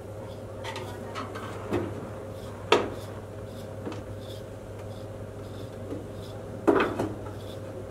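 Metal rotisserie spit of a Napoleon gas grill clanking as it is seated in the rotisserie brackets and motor. There is a sharp clank nearly three seconds in, a louder cluster of clanks near the end and a few lighter knocks between, over a steady low hum.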